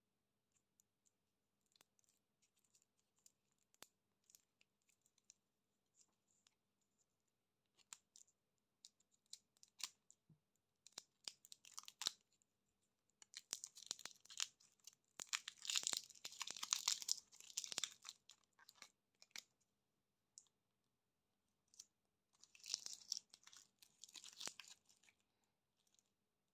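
Lollipop wrapper crinkling and tearing as fingers peel it off the candy. Faint scattered crackles at first, then a dense run of crinkling about halfway through and a shorter one near the end.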